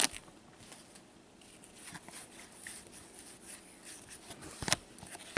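Faint rustling and soft ticks of trading cards and a torn foil wrapper being handled in cotton-gloved hands, with one sharper click near the end.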